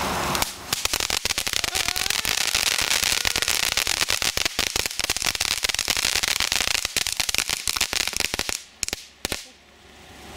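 Ground firework fountain spewing sparks with dense, rapid crackling that starts about half a second in, then thins to a few last pops and dies away near the end.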